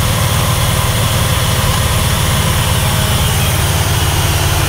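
Bread truck's 350 V8 with a four-barrel carburetor idling steadily while it warms up, heard up close with the engine cover off inside the cab.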